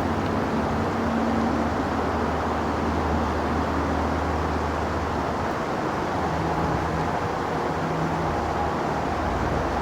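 Steady rumble and hiss of nearby highway traffic, with a faint low engine hum in it and no gaps.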